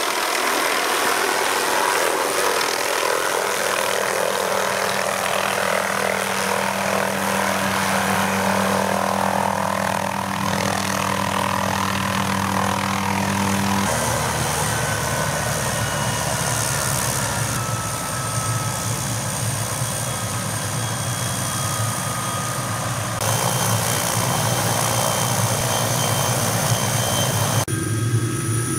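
MD 500 helicopter running close by: a steady engine and rotor noise with a high turbine whine, its tone shifting abruptly a few times.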